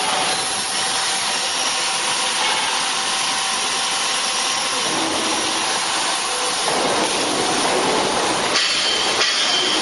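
Hydraulic vertical tire baler running: a steady hissing machine noise that shifts in texture about halfway through and again towards the end.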